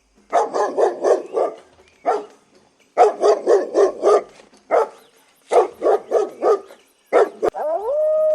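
A dog barking in quick volleys of several barks with short pauses between. Near the end it breaks into a rising howl that holds one pitch.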